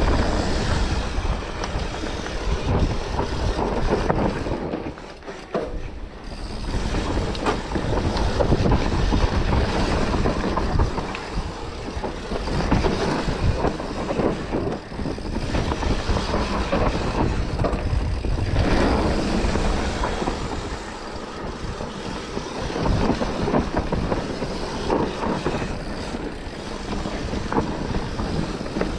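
Wind rushing over the microphone mixed with tyre and rattle noise from a bike ridden fast down an enduro stage. It surges and eases, with a brief lull about five seconds in.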